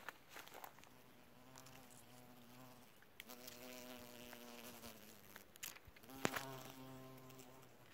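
A flying insect buzzing close to the microphone, in three passes of a couple of seconds each, with a few sharp clicks between them.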